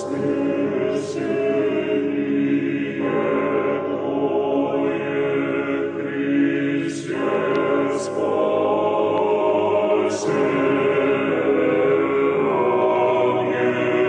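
Choral music: a choir singing long held chords that change every few seconds.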